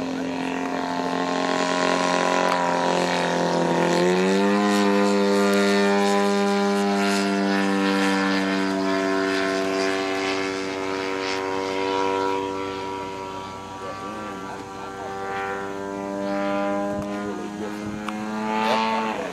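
Radio-controlled aerobatic model plane's engine and propeller running in flight, a steady pitched drone. The pitch steps up about four seconds in, holds, and drops away near the end.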